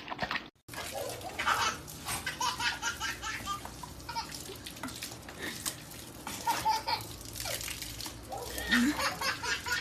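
People laughing, in short bursts, over a steady low hum and faint water sounds.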